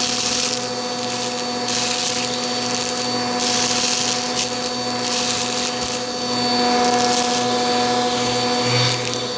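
Bissell vacuum cleaner running steadily: a constant motor hum under a rush of air whose hiss swells and fades several times as the suction changes.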